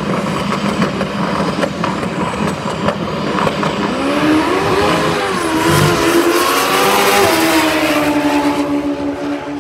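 Engines idling at a drag strip start line, then a drag-racing motorcycle accelerating hard down the strip. Its engine pitch climbs and drops several times through the gear changes, loudest after the middle, then holds steady near the end.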